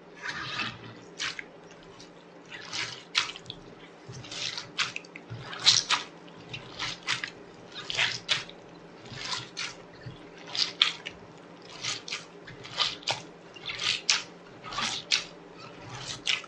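Hands squeezing and kneading a batch of failed, sticky slime: repeated wet squelches and small pops, often in close pairs, about one or two a second.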